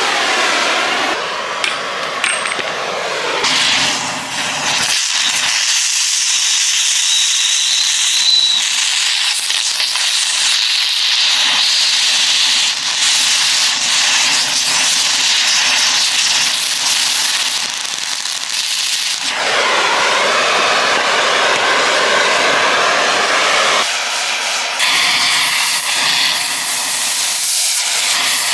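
Cutting torch hissing steadily as it cuts through a press-fit steel ball joint in a lower control arm, its tone shifting a few times.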